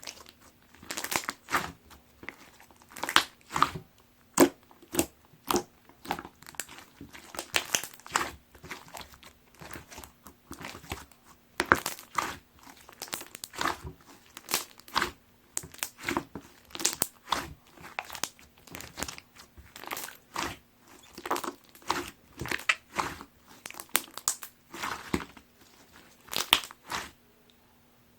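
Clear slime mixed with cut plastic heart-shaped straw pieces being squeezed and pressed by hand, giving irregular crunchy crackles and pops, a few a second. The crackling stops about a second before the end.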